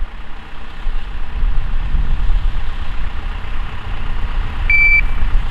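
An electronic shot timer gives a single high beep about three-quarters of the way through, the start signal for a timed shooting drill. Under it runs a steady low rumble.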